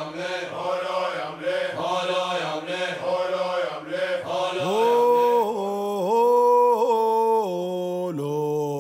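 Male chanting, rhythmic at first with about two beats a second, then from about halfway one voice holding long notes that slide between pitches.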